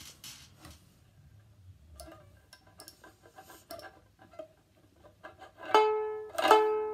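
Ukulele: a few soft plucks and taps, then two loud strummed chords less than a second apart near the end, each left ringing.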